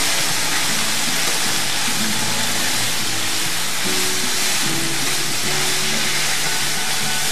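Sliced vegetables sizzling steadily as they are stir-fried in a hot pan, with background music playing underneath.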